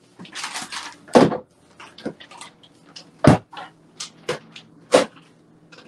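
Kitchen clatter of doors and items being handled while food is put away: a series of about five sharp knocks and clacks, with a brief rustle near the start and a low steady hum underneath.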